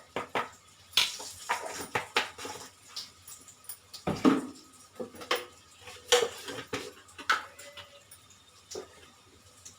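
Metal spoon clinking and tapping against steel spice containers and a bowl as spices are spooned out, a string of irregular sharp clinks, a few of them ringing briefly.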